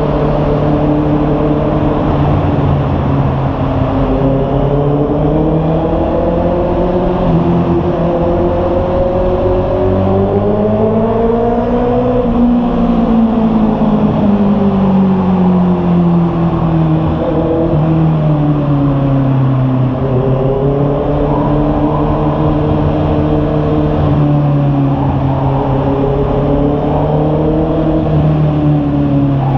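Honda CB650R's inline-four engine and exhaust running under way on a ride. The engine note climbs smoothly to a peak about twelve seconds in, falls away, then swells and eases again with the throttle.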